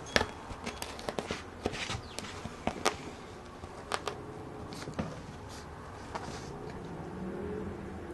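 Bichon Frise puppy scrabbling on a hard floor while tugging and flipping a woven rug: irregular clicks, scuffs and scrapes of paws and rug against the tiles.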